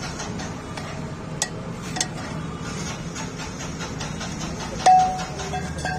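Steel spanner and tools clinking against a motorcycle brake pedal, with a couple of sharp metal clicks and, near the end, a louder clank that rings briefly, over a steady low hum.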